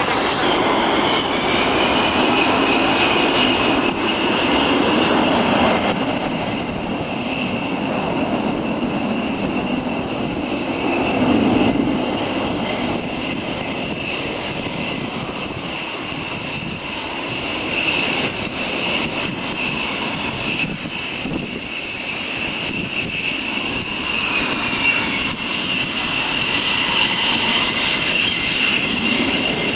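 Military fighter jet engines running on the ground: a steady high whine over a lower rumble that swells and fades a couple of times.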